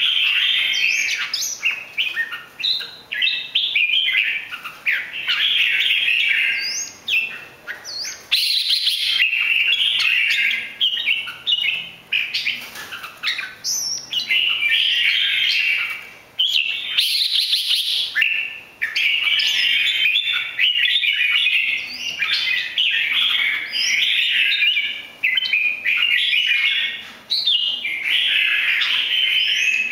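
Red-whiskered bulbul singing in long runs of quick, varied warbled and chirped notes, broken by a few short pauses.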